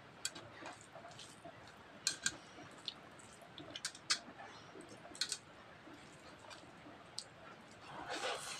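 Faint sounds of eating rice and curry by hand from a metal plate: chewing and wet mouth clicks with a scatter of small, sharp clicks, and a longer rustle near the end.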